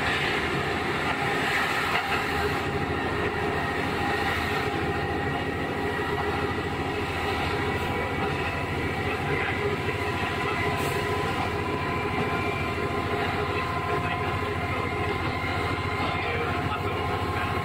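KiHa 11 diesel railcar running on the line, heard from on board: the steady drone of its Cummins diesel engine and the running gear on the rails, with a steady whine over it.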